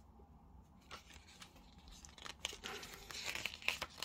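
Pages of a thick paper booklet being turned by hand, with a few light ticks of the paper followed by a longer rustle and flap of pages, loudest near the end.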